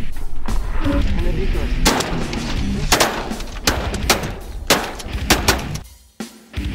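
A rapid volley of shotgun blasts, about eight sharp shots over three or four seconds, over loud rock music. The sound drops out briefly near the end before the music returns.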